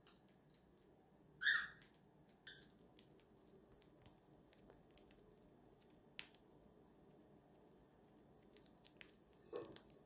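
Cockatiel husking millet seeds off a millet spray held in its foot: faint, irregular small clicks of seeds cracking in its beak. A brief squeak about a second and a half in is the loudest sound, with a fainter one a second later.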